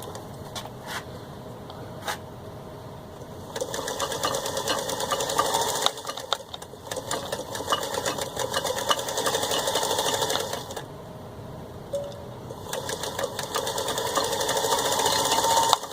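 1949 Singer 221-1 Featherweight sewing machine stitching through four layers of denim at good speed, going back and forth. After a few clicks it starts about three and a half seconds in, runs in spells with a short dip and a pause of about two seconds, and stops just before the end.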